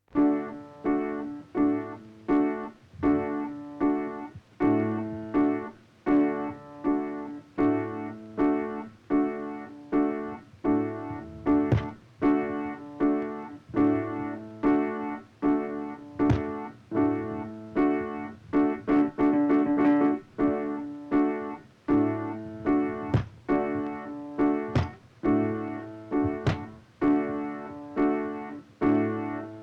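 Piano-like keyboard music: the same chord struck again and again, each strike dying away before the next, starting abruptly out of silence, with a few sharp clicks among the strikes.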